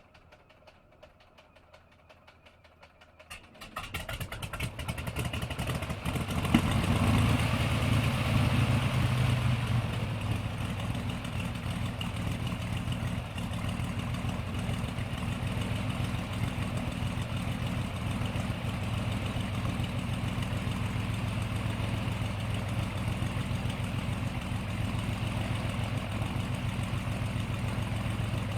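Propeller airplane's piston engine starting: a few seconds of faint clicking, then the engine catches about four seconds in, runs louder for several seconds, and settles into a steady idle.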